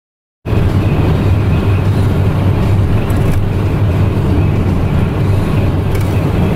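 Steady, loud drone of a moving vehicle: engine and road noise that sets in about half a second in and holds unchanged.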